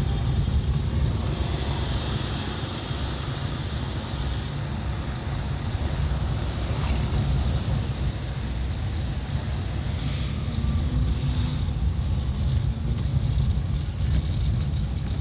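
Suzuki Carry 1000's small four-cylinder engine running steadily on the move, heard from inside the cab, with a constant low rumble under road and wind noise. A brighter hiss swells for a few seconds about a second and a half in.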